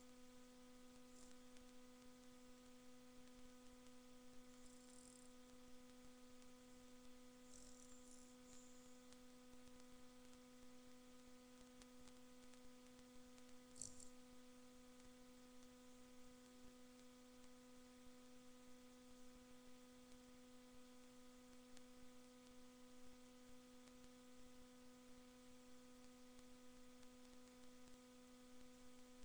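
Near silence with a steady low electrical hum and a few faint, brief ticks.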